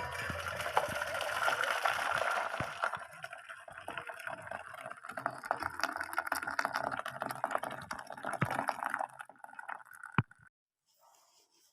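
Hot water from an electric kettle gurgling steadily, with scattered small clicks, then stopping abruptly near the end.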